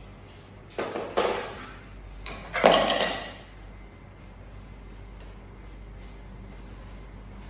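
A few short scraping knocks, one about a second in and a louder one near three seconds, then quiet room tone.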